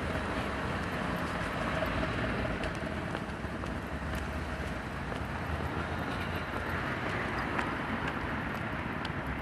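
Steady hum of road traffic, with a few faint clicks toward the end.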